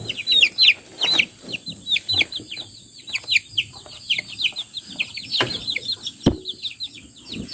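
Several baby chicks peeping: many short, high peeps that fall in pitch, overlapping several a second, with a few sharp knocks in between.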